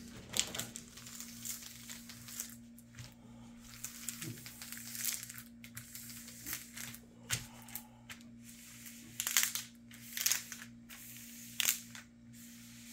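Plastic cover sheet of a poured-glue diamond painting canvas being peeled back partway from the sticky surface, with irregular crinkling and peeling rustles.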